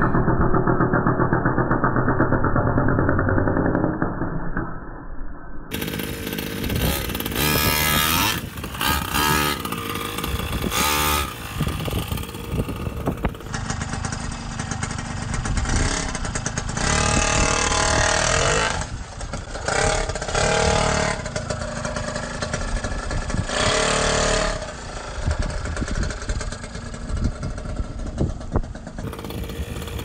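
Two-stroke gas engine of a large-scale Primal RC Raminator monster truck running and revving in repeated bursts, the engine note rising and falling.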